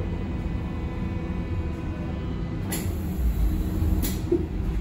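Berlin U-Bahn F90 three-phase AC train running, a steady low rumble of wheels on track with faint steady motor tones above it. Two sharp knocks come a little under three seconds in and again about four seconds in.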